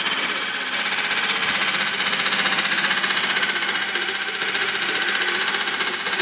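A 2002 Mercury 4 hp four-stroke single-cylinder outboard motor running steadily.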